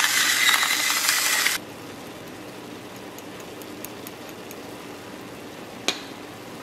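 Electric gravity-fed salt and pepper grinder whirring over the pan for about a second and a half, grinding seasoning onto browning ground beef. It stops abruptly, leaving a low, steady hiss of the meat cooking, and a single sharp knock comes near the end.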